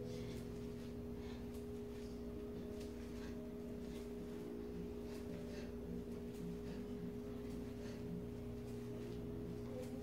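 A steady hum holding two pitches, one low and one a little higher, with faint light taps about once a second from feet stepping on a tiled floor.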